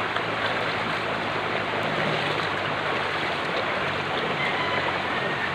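Running stream water flowing steadily over rocks.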